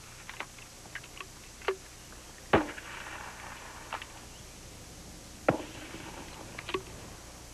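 M203 40 mm grenade launchers firing training rounds: a few sharp, dull pops, the loudest about two and a half seconds in and another about five and a half seconds in, with fainter clicks between them.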